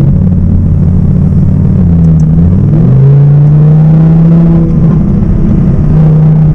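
Audi R8's naturally aspirated V10 engine running under way at steady revs. About two to three seconds in, its pitch slides up, then holds steady again.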